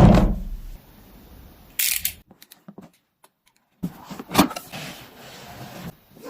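Packaging of a DJI drone being handled during unboxing: a heavy knock, a short scraping rustle about two seconds in, then a sharp click about four and a half seconds in with light rustling after it.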